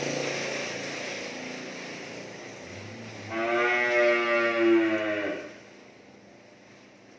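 Cattle lowing during unloading, with one cow giving a single long moo of about two seconds near the middle, loud and drawn out, over fainter animal sounds that fade to quiet near the end.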